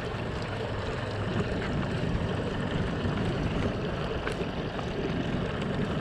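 Steady wind and water noise around a small open boat, with a low, even rumble.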